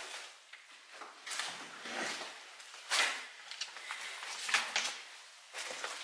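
Irregular scuffing and crunching sounds with a few sharper knocks, the loudest about three seconds in and again about a second and a half later.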